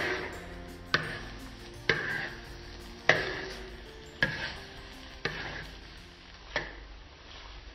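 A metal spoon knocks and scrapes against a wok about once a second, seven strokes in all, as diced corned beef and potato fry with a light sizzle.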